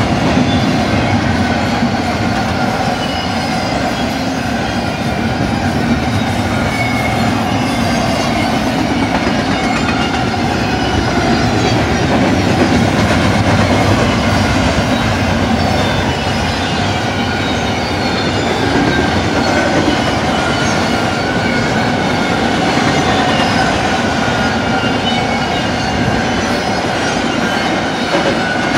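Double-stack container well cars of a freight train rolling past: a steady rumble and clatter of steel wheels on the rails, with thin high wheel squeals that waver in pitch.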